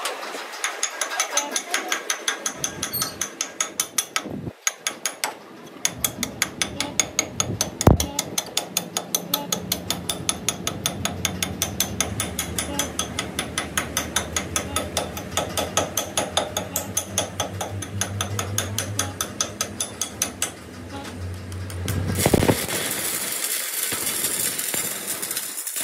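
Lathe turning a truck drive shaft with an even mechanical clicking, about four clicks a second, and a low hum joining about a third of the way in. Near the end the clicking gives way to the steady crackling hiss of an electric welding arc on the shaft.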